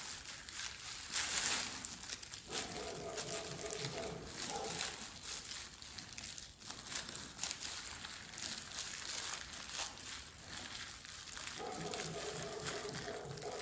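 Faint crinkling and rustling of clear disposable plastic gloves as hands press along a bare back and mark the spine with a pen, a little louder about a second in.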